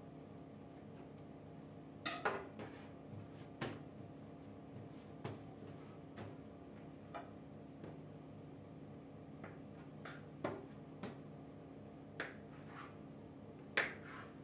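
Knife blade knocking against a hard countertop as it cuts through a log of yeast dough: irregular sharp clicks and taps, loudest about two seconds in and near the end, over a faint steady hum.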